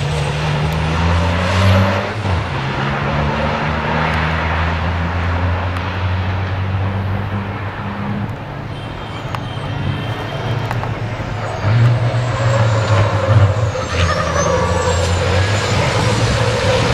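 Turbodiesel racing truck engines running hard on track, the engine note stepping up and down as the trucks work through the gears. Louder from about two-thirds through, as several trucks run close together.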